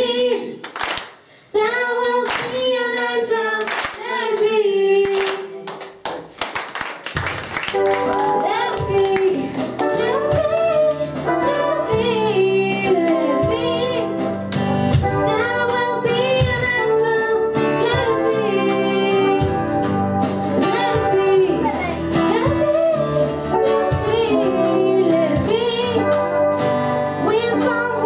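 Young amateur rock band playing live, with a girl singing lead over acoustic guitar, electric bass, drums and keyboard. It opens with singing over hand claps, and the full band comes in about seven seconds in.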